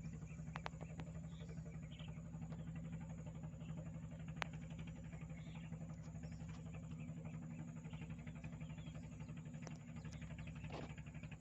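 Small boat engine running at a steady speed, a low, even drone with a few faint clicks.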